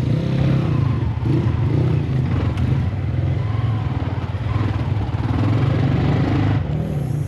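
Motorcycle engine running steadily, its low note wavering slightly.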